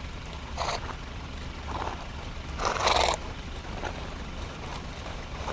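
Horses being driven at a run through snow: several short noisy bursts from the herd, the loudest about three seconds in, over a steady low rumble.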